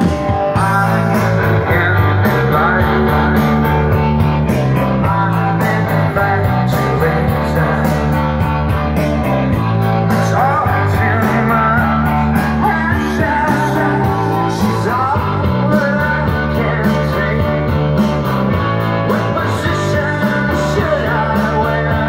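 Rock song with guitar, bass, a steady drum beat and singing, played back through a pair of JPW Sonata bookshelf loudspeakers.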